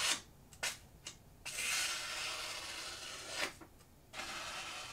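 Kizer Sheepdog's 154CM steel tanto blade slicing through printer paper in a cut test of its factory edge, the cuts hissing. A few short strokes come first, then a long drawn slice of about two seconds and another near the end.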